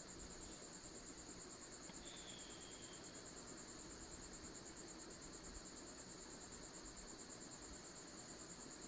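A cricket chirping: a faint, steady, high-pitched pulsing trill.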